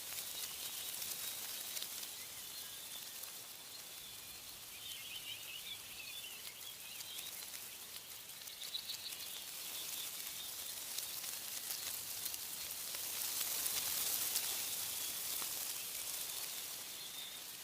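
Wind rustling through tree leaves, a steady high hiss that swells about two-thirds of the way through, with faint bird chirps in the first half.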